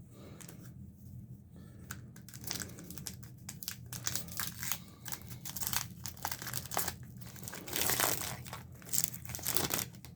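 Foil wrapper of a hockey card pack crinkling and tearing as it is opened and handled, in irregular crackles that get louder near the end.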